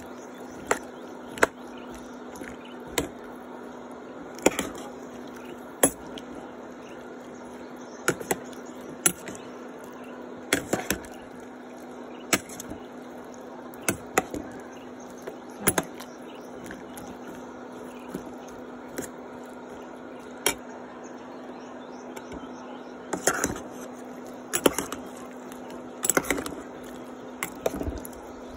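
Metal spoon knocking and scraping against a stainless steel pan while chopped bottle gourd and pork are stirred, with sharp clinks every second or two. Underneath runs a steady frying sizzle and a low hum.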